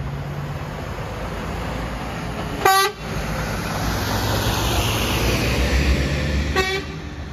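Heavy diesel lorry hauling a low-loader trailer drives slowly past, its engine rumble and tyre noise growing louder as it comes close. A horn gives two short toots, one about two and a half seconds in and one near the end.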